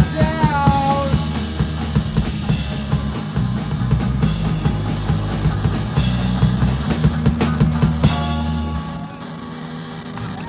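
Live rock band playing: drum kit, electric guitars and bass guitar, with a last sung line at the very start. The band stops about nine seconds in, leaving a guitar chord ringing.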